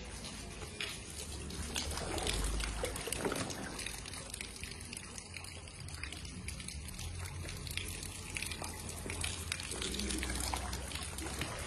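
Muddy floodwater trickling and sloshing: a steady watery hiss with many small splashes and a low rumble underneath.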